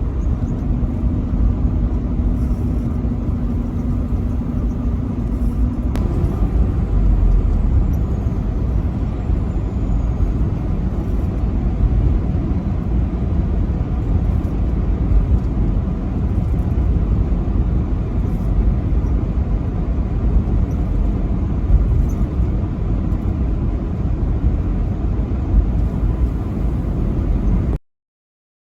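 Truck on the road, its engine and tyres giving a steady low rumble. A faint steady hum runs for the first six seconds and ends with a click. The sound cuts off abruptly near the end.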